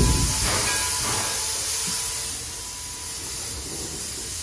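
Steam locomotive venting steam with a steady hiss over a low rumble. The hiss eases down about halfway through, then holds.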